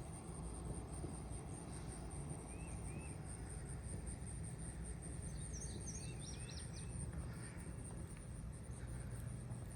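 Outdoor morning ambience: a steady high, pulsing insect trill over a low rumble, with a few short bird chirps about a quarter of the way in and again around the middle.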